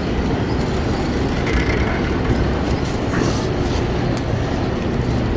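Steady city traffic noise: a continuous low rumble with a wash of hiss above it.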